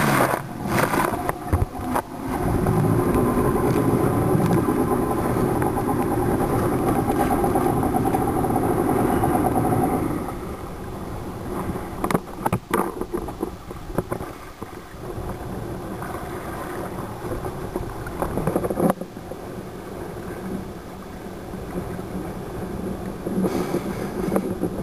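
Jet ski engine running at speed with water rushing along the hull, then easing off about ten seconds in to a quieter, slower run. A few sharp knocks follow as the hull slaps the chop.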